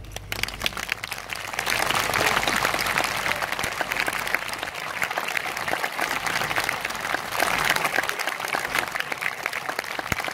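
Audience applauding at the close of a performance: the clapping breaks out and swells over the first couple of seconds into a dense, steady wash of hand claps.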